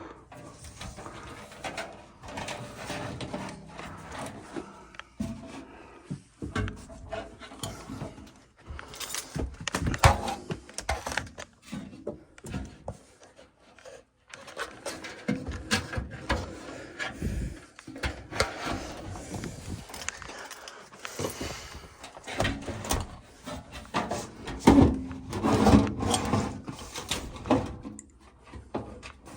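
Irregular knocks, clicks and clatter of hand work, with a brief pause about halfway through.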